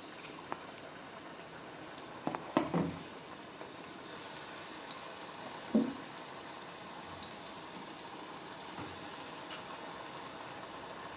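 Onion pakora batter frying in hot oil: a steady sizzle with light crackling. A few short knocks come about two to three seconds in and again near six seconds.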